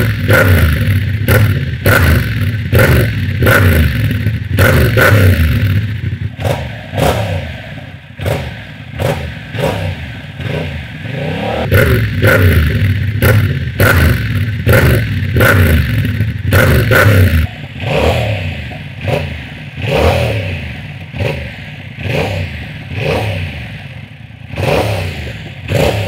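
Yamaha MT-07's 689 cc parallel-twin revved repeatedly while standing, through an Arrow Works exhaust on racing headers without catalysts, dB killer fitted, engine fully warm. Short throttle blips about once a second, each rising then falling back, with a deep "brap brap" note; it eases off twice to a lower rumble.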